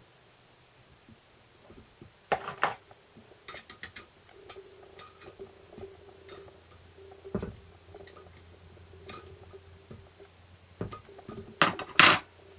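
Hand tools clinking on steel parts: a small spanner tightening the nut on the four-wheel-drive lock lever of a Land Rover Series 3 transfer box's front output housing. Scattered light clicks, with loud metallic clanks about two seconds in and again near the end.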